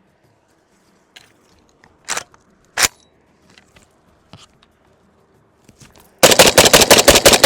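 Two sharp clacks about a second apart, then a rapid string of gunshots, roughly ten a second, from a Zastava ZPAP92 AK pistol in 7.62×39 starting about six seconds in.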